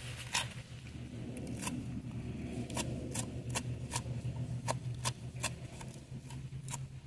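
Fresh cheiro verde herbs being cut: a series of sharp, irregular snips, about two a second, over a steady low hum.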